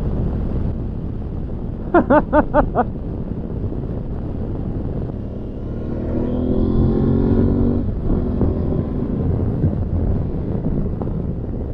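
Aprilia Tuareg 660's parallel-twin engine running on the road over steady wind and road noise. About six seconds in its pitch climbs as the bike accelerates, then falls away at a gear change near eight seconds. Four quick pitched blips come about two seconds in.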